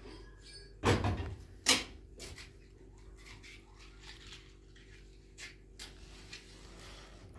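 Two loud knocks about one second and just under two seconds in, the second sharper and the loudest, followed by a few lighter clicks and taps.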